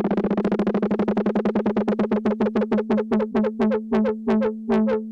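Electronic-music sample loop: a single synthesizer note stuttered in rapid repeats that slow down steadily, from a fast flutter of about fifteen a second to two or three a second near the end.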